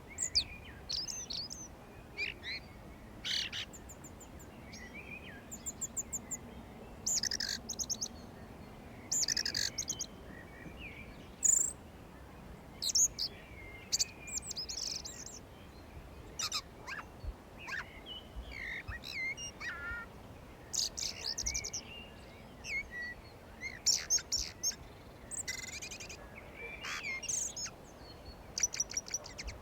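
Several songbirds singing and chirping in spring: short trills and chirps overlapping from different birds, over a faint steady background hiss.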